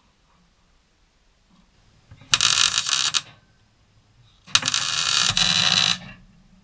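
MIG welder plug-welding new sheet steel: two bursts of arc crackle, the first a little over two seconds in and lasting about a second, the second, longer one starting about four and a half seconds in.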